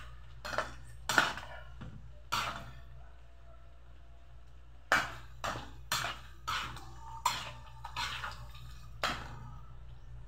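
A metal ladle knocking and scraping against a wok while stirring a stew, in two runs of sharp clanks with a pause of a couple of seconds between them. A low steady hum runs underneath.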